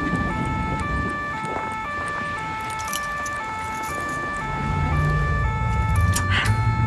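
Two-tone emergency siren alternating steadily between two pitches, each held about half a second. A low rumble swells in under it about two-thirds of the way through.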